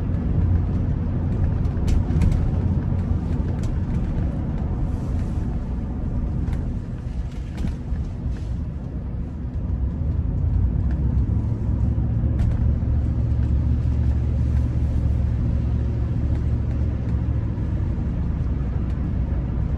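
Car driving along, heard from inside the cabin: a steady low engine and road rumble, which settles into a firmer, more even drone about halfway through.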